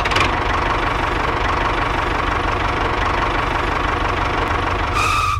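Engine-like motor of a DIY mini tractor running steadily with a rattling, knocking sound. A short high tone comes in near the end.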